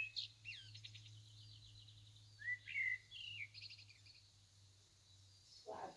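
Faint birdsong: scattered short chirps with two quick trills, one about half a second in and one around three and a half seconds, over a steady low hum.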